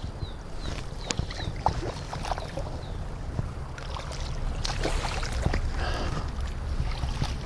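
River water splashing and sloshing as a small hooked fish is played in on a fly line.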